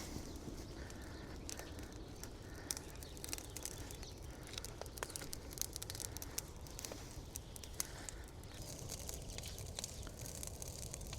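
Bonfire of dry storm-felled branches and stumps crackling as it burns: irregular sharp snaps and pops over a low, steady rumble.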